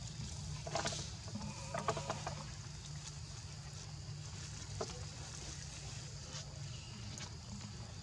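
A few short animal calls, one about a second in and a cluster around two seconds in, over a steady low hum and high hiss.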